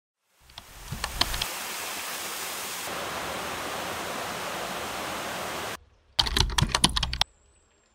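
Waterfall rushing steadily for about five seconds, then cutting off suddenly. About a second of rapid clicking like keyboard typing follows.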